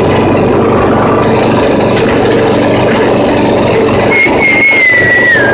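Small riding lawn mower engine running steadily while driving. A high, wavering tone comes in about four seconds in and slides slightly downward.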